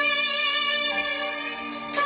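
Music playing through a Lenrue A10 Bluetooth speaker: long held notes, with a change of pitch about a second in.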